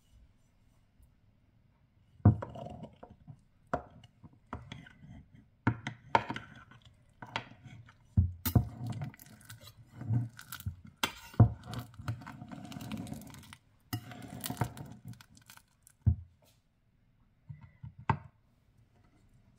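A metal spatula scraping and knocking against a ceramic baking dish as it cuts and loosens a set slab of sticky glutinous rice cake, with soft squelching of the rice. Irregular sharp taps and scrapes start about two seconds in and go on until shortly before the end.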